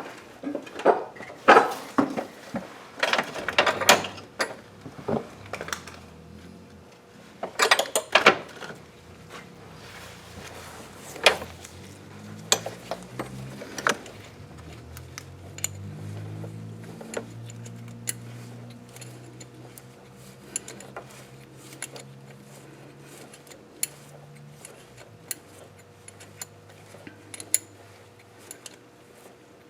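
Metal hand tools and engine parts clinking and clattering as they are picked up and handled, with the loudest knocks in the first half. Lighter, sparser ticks and clicks follow.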